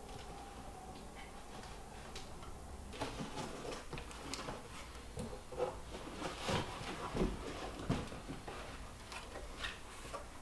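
Cardboard shipping box being opened and handled: scattered rustles, scrapes and knocks of the cardboard and its flaps, beginning about three seconds in.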